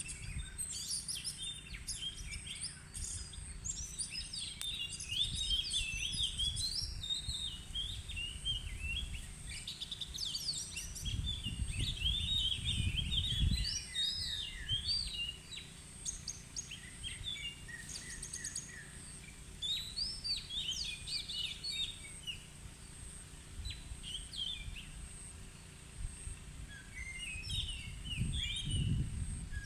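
Oriental magpie-robin singing in the wild: a long run of varied whistled and chattering phrases, coming in bouts with short pauses. Two spells of low rumble come partway through and again near the end.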